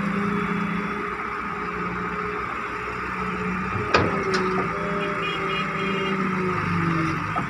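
John Deere 595D excavator's diesel engine running steadily, its pitch shifting slightly as the machine works, with a single sharp knock about four seconds in.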